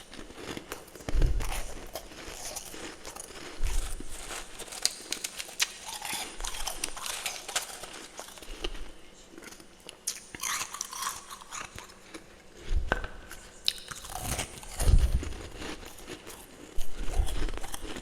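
Close-miked biting and chewing of freezer frost: irregular crunching and crackling, with heavier bites at about one second, three and a half seconds, and several more near the end.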